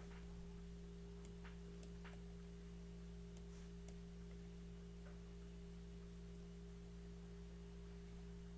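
Steady low electrical hum with a few faint, irregular clicks from a computer mouse.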